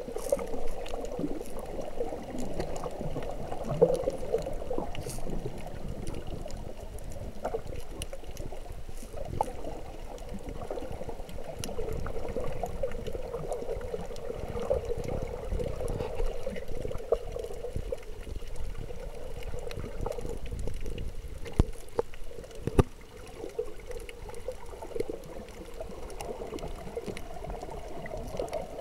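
Muffled underwater sound, heard through a camera held below the surface while snorkelling: a steady, murky wash of moving water with a low rumble and scattered small clicks, two sharper clicks standing out near the end.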